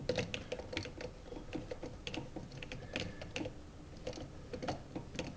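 Irregular light clicks and ticks of a screwdriver turning down the terminal screw on an electrical outlet, with the wire and plastic outlet body clicking as they are handled.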